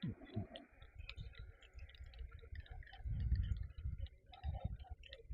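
Faint, irregular light clicks with low, uneven thumps of handling noise, heaviest about three seconds in.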